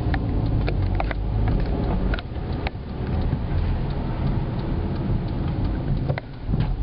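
Car driving, heard from inside the cabin: a steady low engine and road rumble, with scattered sharp clicks and knocks.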